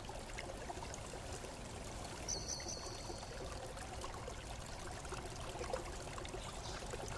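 Faint steady hiss with no clear source, and a short high whistle-like tone about two seconds in.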